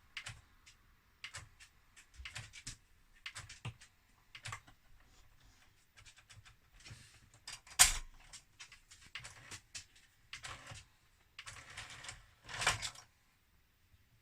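Irregular plastic clicks, knocks and scrapes from a Mission PCM7000 CD player's loading tray and mechanism being worked by hand, with one sharp click about eight seconds in and a few longer scraping sounds in the second half. The tray is stuck and sitting at an angle in its mechanism.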